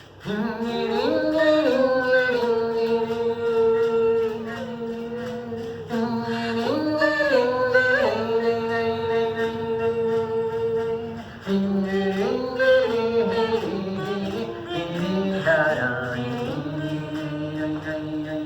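Unaccompanied singing: long held notes that step up and down in a slow, chant-like melody, starting suddenly at the beginning.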